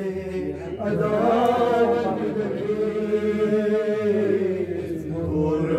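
A man singing a manqabat, an Urdu devotional praise poem for Imam Ali, solo into a microphone, in long, wavering held notes.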